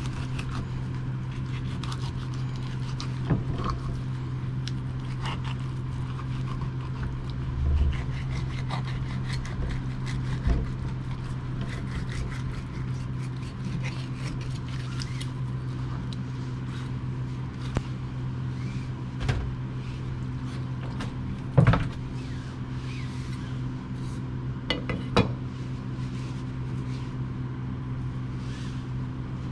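Kitchen knife cutting and scraping through a Korean rockfish along its bones on a plastic cutting board, with scattered clicks and a few sharper knocks, over a steady low hum.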